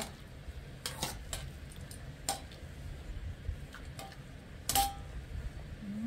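Kitchen utensils and a pot clinking and knocking: five or six separate clinks, the loudest just before the end with a brief ring.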